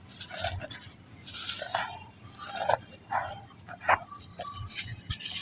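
Balls of soft black sand crushed and crumbling, a string of irregular short crunches with a sharp crack about four seconds in.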